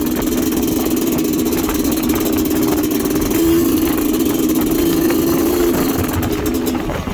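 Motorcycle engine, a Kawasaki Ninja engine swapped into a Suzuki TS trail bike, running steadily, with slight rises in pitch from light throttle a few times.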